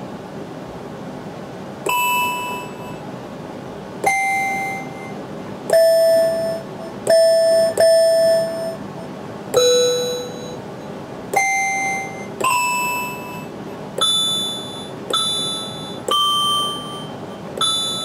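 Synthesizers.com modular analog synthesizer playing a bell patch: about a dozen struck bell-like notes at different pitches. Each starts sharply and rings away over a second or so. The patch is triangle and square oscillators mixed with noise, shaped by an envelope.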